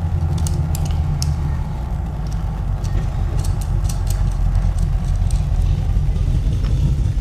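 Steady low rumble under scattered light clicks and taps of metal parts, as bolts are fitted through a steel template plate and a caster plate.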